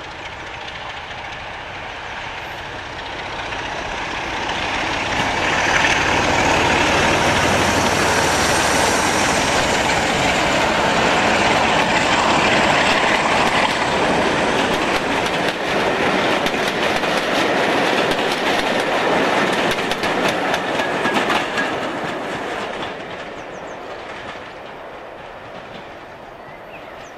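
A diesel locomotive hauling a passenger train past, its engine working and the coaches' wheels clattering over the rail joints. The sound builds over the first few seconds, stays loud through the middle and fades away near the end as the train recedes.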